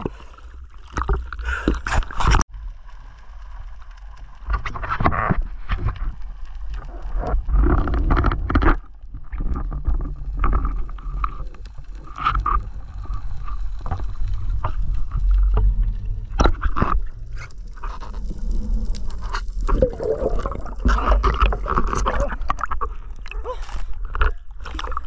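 Water sloshing and gurgling around a diver's camera in and under the sea, with a steady deep rumble and many irregular knocks and clicks from handling.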